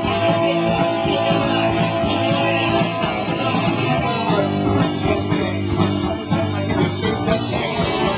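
Punk rock band playing live: electric guitar, bass guitar and drums, steady and loud.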